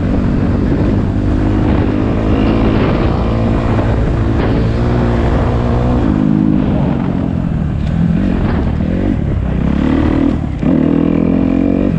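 Dirt bike engine running as it rides a rough dirt track, its pitch rising and falling with the throttle, with a brief drop about ten and a half seconds in.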